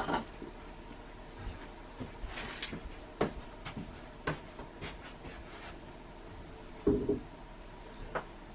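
Dried baby sardines being stirred in a dry pan: light, scattered clicks and taps, with one louder, brief sound about seven seconds in.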